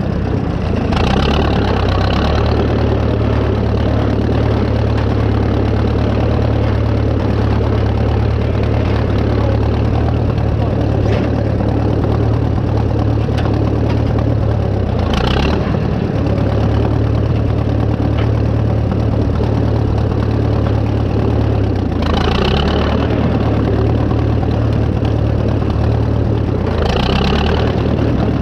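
Farmall F-20 tractor engine running steadily while the tractor pulls a hay rake across the field. A few brief, higher-pitched noises come through on top of it, about four times.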